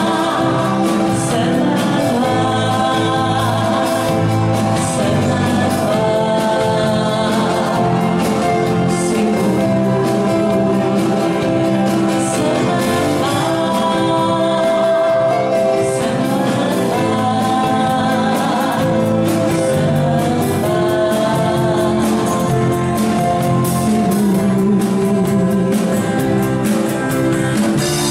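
A live band playing a song, with a woman singing lead and men singing with her, over acoustic guitar and drums.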